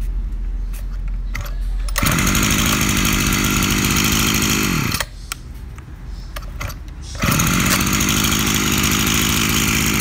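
Small two-stroke engine of a used Japanese brush cutter idling, then opened to full throttle twice for about three seconds each, its pitch falling back to idle after each burst.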